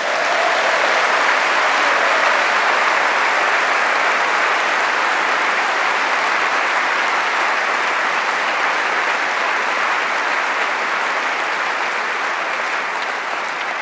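A large audience clapping steadily, easing off slightly near the end.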